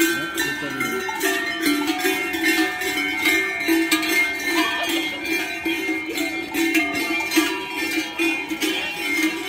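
Traditional folk music with a steady beat and bell-like ringing, accompanying a Perchten procession.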